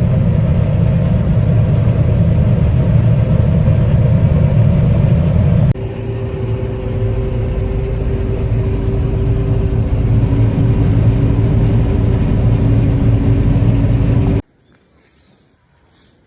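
Harvest machinery running, a loud steady low rumble. About six seconds in it changes abruptly to another engine with a steady hum, and near the end it cuts off suddenly to quiet.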